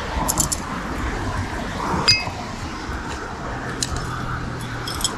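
Rusty scrap iron from a magnet-fishing haul clinking as the pieces are handled and set down on asphalt: a few light clinks, with one sharper ringing ping about two seconds in.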